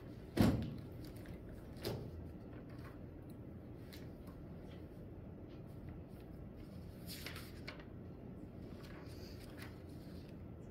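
Steady room hum with two knocks: a sharp one about half a second in and a softer one about a second and a half later, then a few faint clicks near the end.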